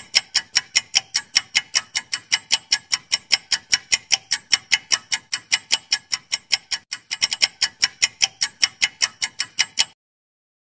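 Quiz countdown-timer sound effect: clock ticking fast and evenly, about five ticks a second, that stops abruptly near the end.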